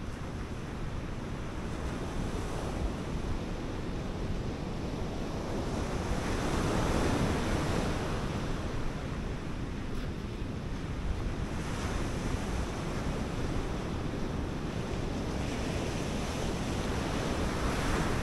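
Sea surf breaking on a sand beach, a steady rush of surging water with wind buffeting the microphone. The wash swells for a couple of seconds about six seconds in, and again more briefly later.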